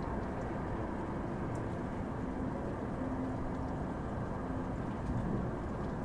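Steady white noise: a continuous, even hiss with its weight in the low end and little treble, unchanging throughout.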